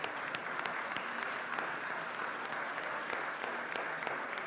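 Applause from a crowd, many people clapping steadily.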